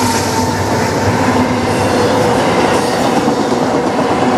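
Freight train's autorack cars rolling past close by at speed: loud, steady noise of steel wheels running on the rails.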